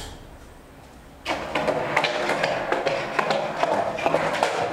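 Skateboard wheels rolling across a tiled floor, starting about a second in and running on steadily with a rapid clatter of small clicks.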